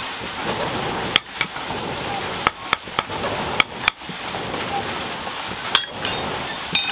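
Hammer striking iron while forging nails: irregular sharp, ringing metallic clinks, mostly in pairs. They sound over a steady rushing noise.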